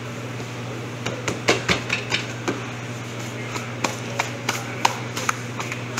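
Kitchen clatter: irregular sharp clicks and knocks, like dishes and metal utensils, beginning about a second in, over a steady low hum of kitchen equipment.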